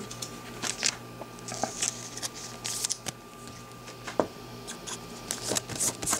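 Trading cards and a clear plastic card holder being handled on a table: light scattered clicks, taps and papery rustles of card stock and hard plastic.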